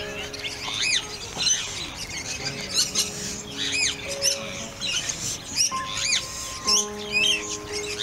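Many birds chirping and squawking in quick, frequent high calls, over background music of long, held notes.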